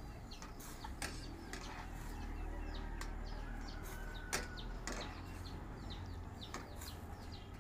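Chickens clucking and small birds chirping over a low steady hum, with a few sharp clicks as a wire spider strainer stirs broccoli in a wok of boiling water.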